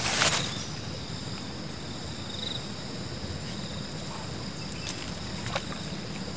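Steady chorus of insects, several high-pitched tones held at once, with a short trill about two and a half seconds in. A brief rustle at the very start and a few faint clicks about five seconds in.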